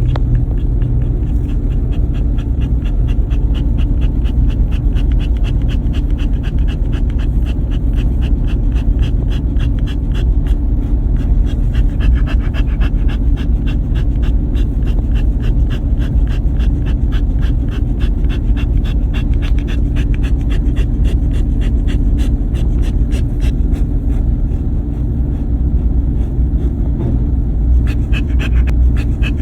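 Dog panting rapidly and rhythmically, over a loud, steady low rumble.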